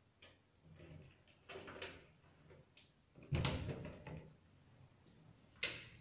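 A door being handled and pushed open: a few knocks, a heavy thump about three seconds in, and a sharp click shortly before the end.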